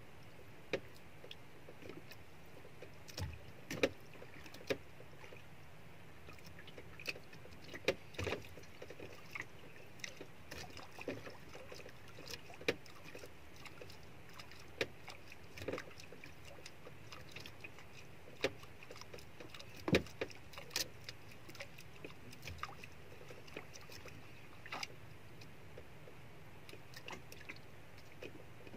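Sparse, irregular knocks and clicks over a steady faint hiss: a small wooden outrigger boat drifting at sea while an ultralight jigging rod and spinning reel are worked.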